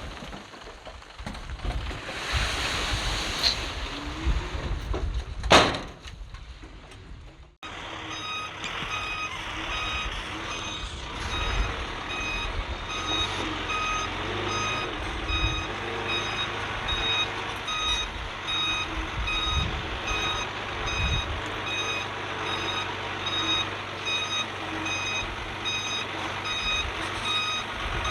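Heavy earthmoving machinery running with a sharp bang about five seconds in. After an abrupt cut, a machine's back-up alarm beeps over and over at an even pace above the steady rumble of a diesel engine, the sign that the machine is reversing.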